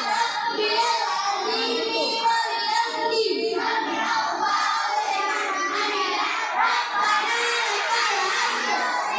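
Many children chanting prayer recitations aloud together in a sing-song chorus, the voices overlapping and not quite in step.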